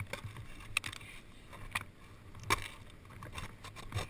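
Action-camera handling noise: a few sharp knocks and scrapes, the loudest about two and a half seconds in, over a low rumble.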